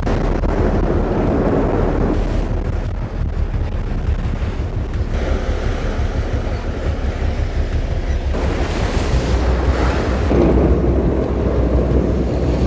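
Wind buffeting the microphone over the rush of water and wake along a moving sportfishing boat, with a steady low engine rumble underneath. The noise shifts abruptly several times as the shots change.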